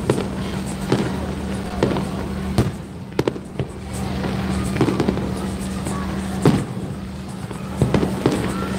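Fireworks display going off: irregular sharp bangs and cracks from bursting shells, roughly one a second.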